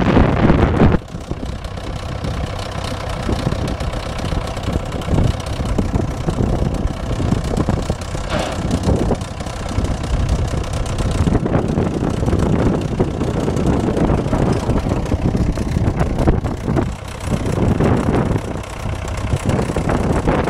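The engine of a 1955 Fordson County crawler tractor runs steadily at low revs as the crawler moves slowly, its sound swelling and dipping a little. A loud rush of noise fills the first second.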